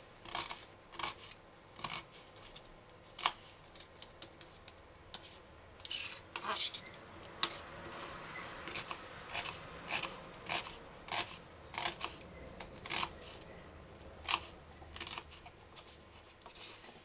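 Kitchen knife slicing an onion on a plastic cutting board: a series of irregular, crisp knife strikes, roughly one or two a second, as the blade cuts through the onion and taps the board.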